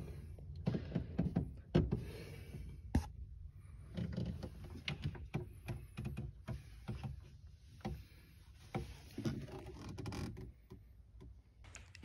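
Irregular light knocks, clicks and rubbing from a phone being handled and moved around among the hoses and frame under a skid steer.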